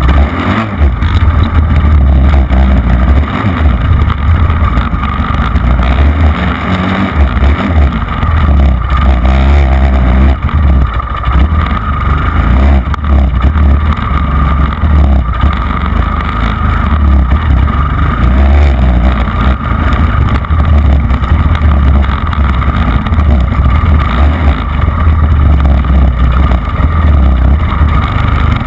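Off-road vehicle's engine running hard with the revs rising and falling as it rides a sand track, with heavy wind rumble on the handlebar-mounted microphone.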